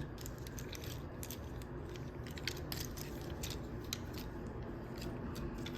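Scattered light plastic clicks as the joints and panels of a Transformers Studio Series Ratchet action figure are bent and moved during transformation, over a faint steady background hum.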